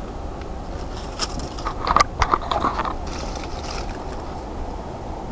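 Fishing rod and baitcasting reel being worked while fighting a hooked fish: a cluster of sharp clicks and knocks between about one and three seconds in, over a steady low rumble.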